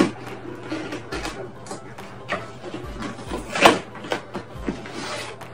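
Cardboard shipping box opened by hand: packing tape peeled and torn, and the flaps pulled open with rustling and scraping. One sharper, louder tearing sound comes about three and a half seconds in.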